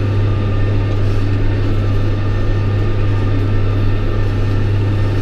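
John Deere 6110R tractor running steadily under load, driving a disc mower off the PTO set in standard 540 mode rather than 540E. Heard from inside the cab, it is an even drone with a strong low hum and a faint higher whine.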